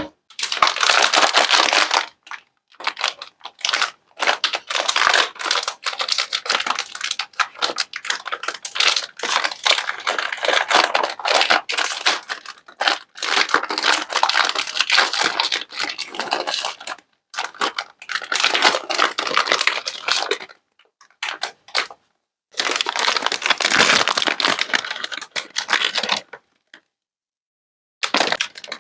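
Crisp crinkling and crunching in runs of a few seconds, with short silent breaks between them, as sweets are piled onto a platter.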